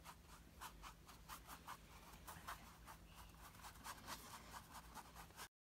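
Paintbrush bristles scratching across stretched canvas as acrylic paint is dabbed on in a quick series of short strokes, about three a second, with a faint low hum underneath. The sound cuts off abruptly near the end.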